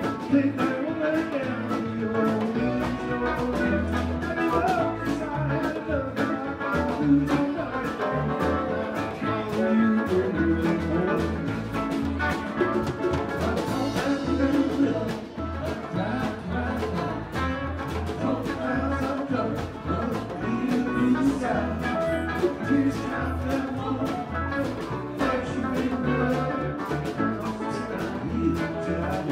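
Live band playing an instrumental passage, drums keeping a steady beat under bass and other instruments.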